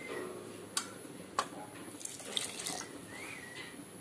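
A little water poured into a steel kadai of chicken cooking in masala, with a couple of sharp clicks partway through.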